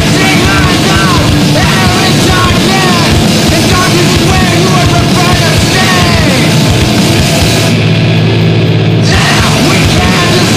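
Loud, distorted screamo/noise-rock band recording: guitars, bass and drums playing dense and fast, with sliding, bending guitar pitches. The bright top end cuts out for about a second around eight seconds in.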